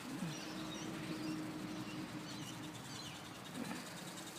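Small birds chirping faintly in short high notes over a steady low hum.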